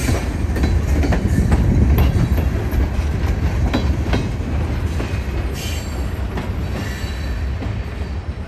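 Freight train's covered hopper cars rolling past, with a steady wheel rumble and sharp clicks as the wheels pass over the rail. A faint wheel squeal comes in about six seconds in, and the sound grows gradually fainter as the last car passes and moves away.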